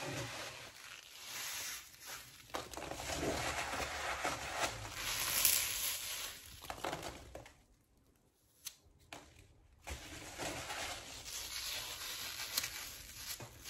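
Foam packing peanuts being squeezed and crushed in a fist close to the microphone, on and off, with a short quiet gap a little past the middle.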